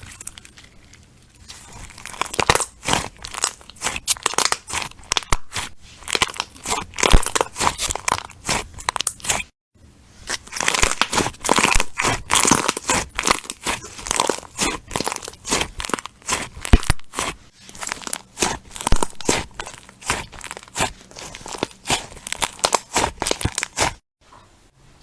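Crunchy slime being squeezed and worked by hand: dense, rapid crackling and popping. It stops briefly about ten seconds in, then goes on.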